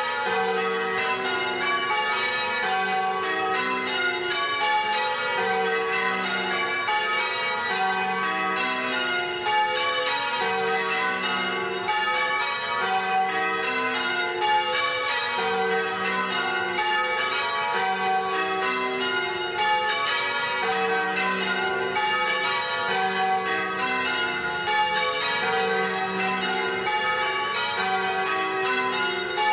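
Church bells ringing a peal, many bells struck one after another in a rapid, unbroken stream.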